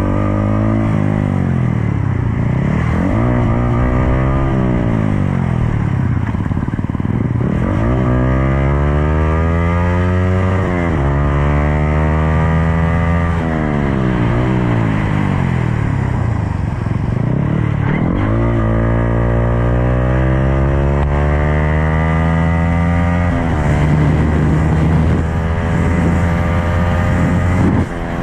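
Yamaha sport motorcycle engine, heard from the rider's seat. It revs up again and again in rising sweeps, each falling back at a gear change or as the throttle eases, then runs more steadily for the last few seconds.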